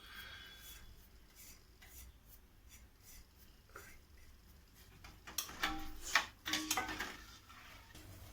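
Spoon stirring and scraping in a cooking pot, with a cluster of scrapes and knocks about five to seven seconds in.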